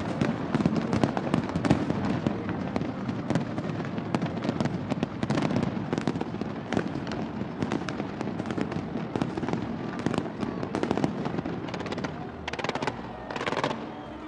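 Aerial fireworks display: a dense, continuous barrage of shell bursts and crackling bangs, thinning to a few separate bursts near the end.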